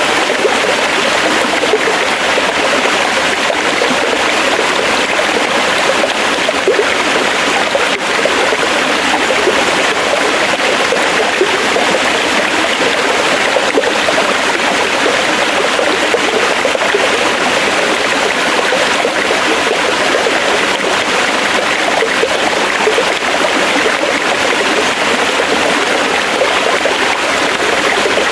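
Forest stream running steadily over rocks, a continuous rushing and gurgling of water.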